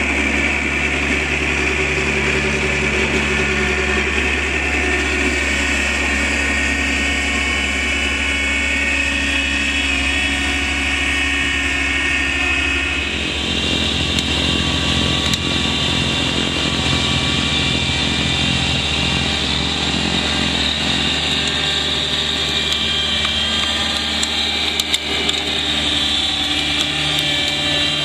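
Kubota B3200 compact tractor's three-cylinder diesel engine running steadily under load, driving its front-mounted PTO snowblower as it throws slush. The tone shifts abruptly about thirteen seconds in.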